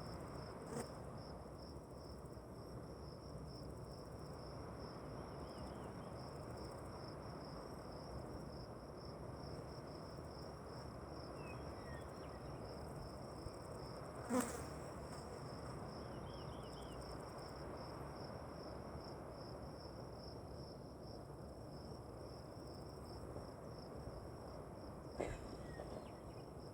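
Crickets trilling steadily in a high, finely pulsing chorus over a low background hiss. A sharp click comes about halfway through, the loudest sound, and a smaller one near the end.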